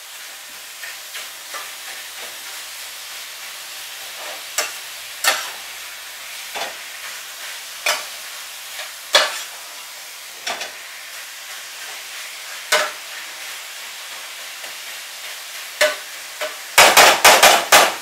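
Chicken pieces sizzling in a hot frying pan while a utensil stirs them, scraping and clicking against the pan every second or so. Near the end comes a quick run of loud knocks, about five a second, of the utensil against the pan.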